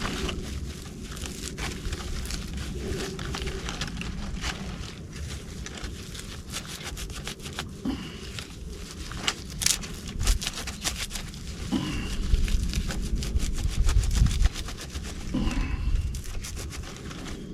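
Dry tree-bark fibers being rubbed and torn apart by hand, giving a dense, continuous crackling and rustling. Heavier low bumps of handling come in the second half.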